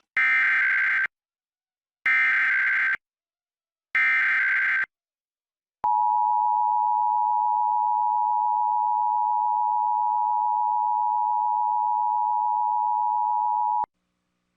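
Emergency Alert System header from a DASDEC encoder: three one-second bursts of SAME data tones, then the two-tone attention signal (853 and 960 Hz) held steady for about eight seconds before cutting off sharply. This opens a required monthly test.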